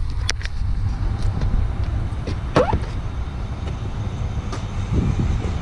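Steady low rumble of a vehicle running, with a few light clicks and a short squeak about halfway through.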